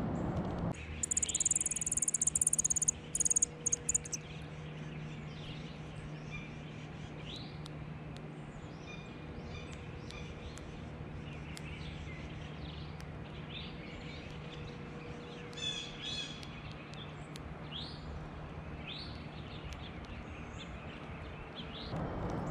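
Small songbirds giving short, high chip calls scattered throughout, with a quick run of descending chirps past the middle. A loud, very high-pitched buzzing trill comes in stops and starts during the first few seconds.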